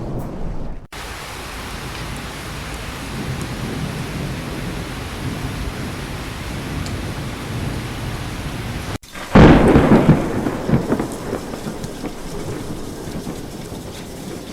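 Heavy rain falling as a steady hiss, with a low thunder rumble at the start that cuts off abruptly. About nine seconds in, a sudden loud thunderclap cracks and rumbles away over the following seconds under the rain.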